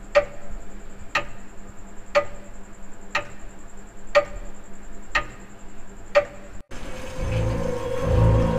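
A clock ticking evenly, about once a second, cut off suddenly near the end and replaced by low, pulsing horror music.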